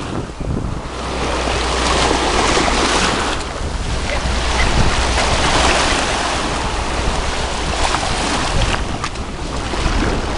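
Wind buffeting the microphone as a steady low rumble from about a second in, over the wash of small waves lapping at the water's edge.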